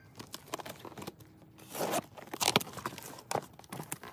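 Packing tape on a cardboard shipping box being slit and torn, and the cardboard flaps pulled open: a run of irregular rips and crinkles, loudest about two and a half seconds in.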